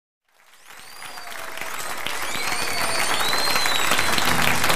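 Live audience applause and cheering that fades up from silence, with several high whistles gliding through it. A steady low instrument note comes in near the end.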